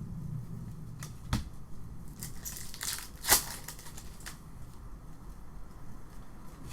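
Foil trading-card pack wrappers crinkling and tearing as packs are opened and cards handled, with a few short crackles and one sharp snap a little past the middle.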